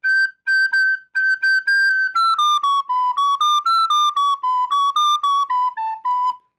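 Recorder playing a melody slowly. It opens with short repeated high notes, then a phrase of lower notes moving by step, with quick grace-note flicks ornamenting some of them in Irish-flute style.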